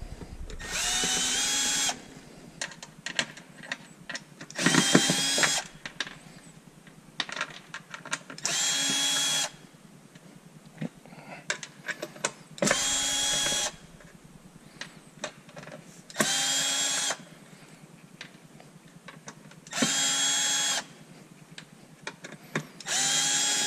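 Cordless drill-driver backing out cover screws in seven short runs of about a second each, each run's whine rising briefly as the motor spins up and then holding steady. Light clicks of handling fall between the runs.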